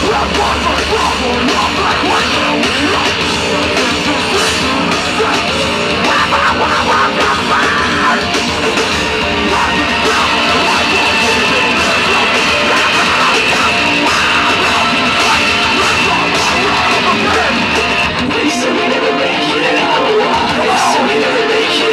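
Metalcore band playing live through a festival PA: distorted electric guitars and drums, loud, heard from within the crowd. The heavy low end drops away about eighteen seconds in.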